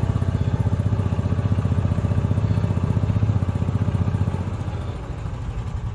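A small engine running steadily close by, with a fast, even putter. It grows quieter about four and a half seconds in as the ride-on vehicle slows down.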